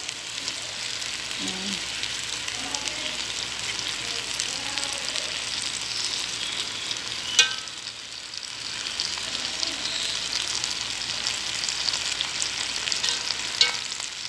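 Fish and potato slices sizzling in oil in a pot, a steady crackling hiss, with two sharp knocks about seven seconds in and near the end.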